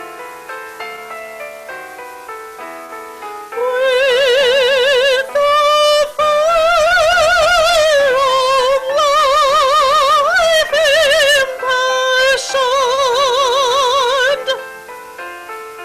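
A hymn with piano accompaniment: the piano plays alone at first, then about four seconds in a soprano voice comes in with a wide, operatic vibrato, holding long notes over the piano. She breaks off near the end, leaving the piano playing alone.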